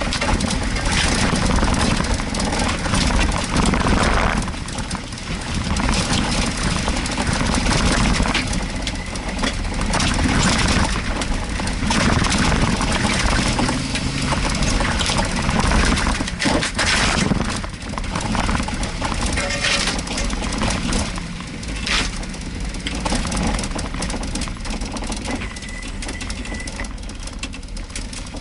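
Jeep Wrangler's engine running as it drives along a rough, overgrown dirt track, with frequent knocks and rattles over the bumps.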